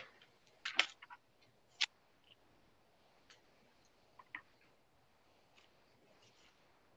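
A few short, faint clicks and taps: a small cluster about a second in, a sharp one just before two seconds, a pair past four seconds and fainter ones after, over low background hiss.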